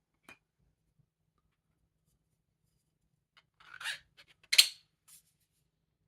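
Handling noise of small hard objects: a short scraping rustle about four seconds in, then a single sharp click just after, with a few faint ticks around them.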